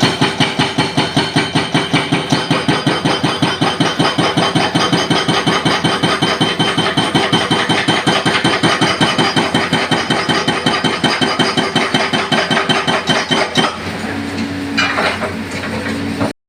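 Excavator-mounted hydraulic breaker hammering concrete pavement in a rapid, steady run of blows, several a second, over the excavator's running engine. The hammering stops near the end, leaving the engine running with a steady hum and a short hiss.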